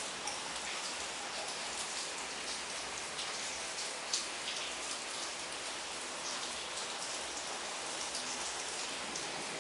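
Steady patter of water splashing and bubbling in a home aquarium, made of many tiny drops and pops, with one sharper tick about four seconds in.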